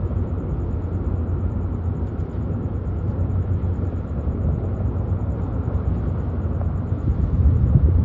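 The Lobo Marinho ferry's diesel engines run as a steady low rumble while the ship manoeuvres in the harbour, swelling a little near the end.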